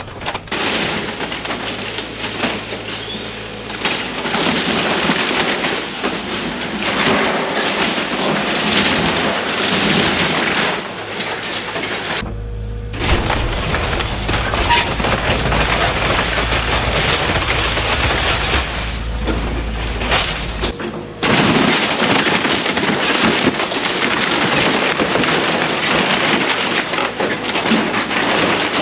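Excavator demolishing wooden outbuildings: a continuous loud din of splintering timber and crashing boards and sheet metal over the machine's diesel engine. The sound changes abruptly twice, and the middle stretch has a heavy low rumble.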